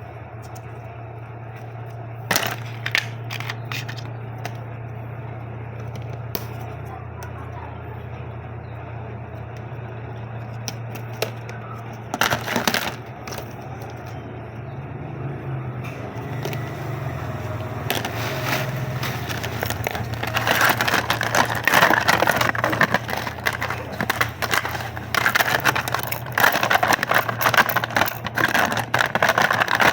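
Plastic packaging crinkling and crackling as a parcel is unwrapped by hand, with a few sharp clicks early on, then continuous dense rustling through the second half over a steady low hum.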